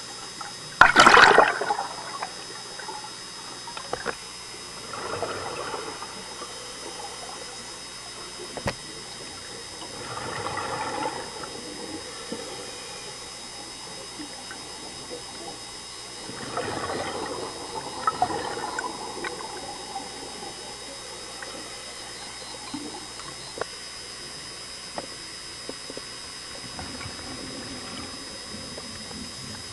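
Scuba regulator exhaust bubbles heard underwater: bursts of bubbling as a diver breathes out, about every five or six seconds, the first one loudest. A few sharp clicks and a faint steady high whine sit between the bursts.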